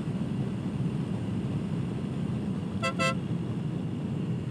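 Suzuki Burgman 650 scooter's horn giving two short toots about three seconds in, a warning to a driver pulling out in front. Steady wind and road noise from riding at speed runs underneath.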